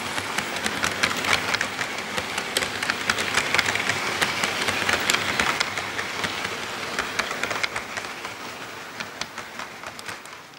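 HO scale model freight train rolling past on sectional track: the cars' wheels click irregularly over the rail joints over a steady whir. The sound fades away over the last few seconds as the end of the train passes.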